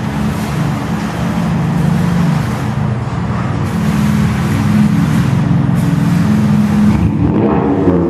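2016 Toyota Corolla's four-cylinder engine running through a straight-piped exhaust with no muffler, giving a loud, steady low drone.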